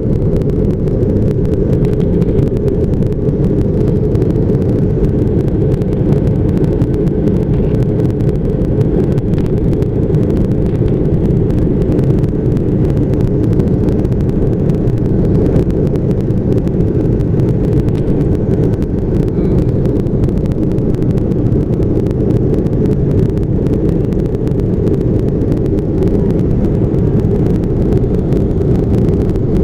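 Airplane engine drone heard from inside the plane: a loud, steady, low rumble that does not change.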